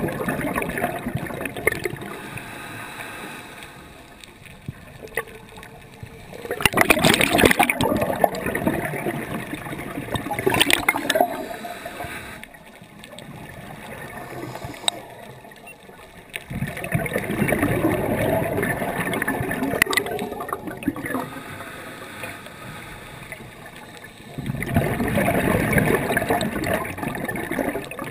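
Scuba diver breathing through a regulator, heard underwater: four long rushes of gurgling exhaled bubbles about every eight to nine seconds, with quieter stretches between breaths.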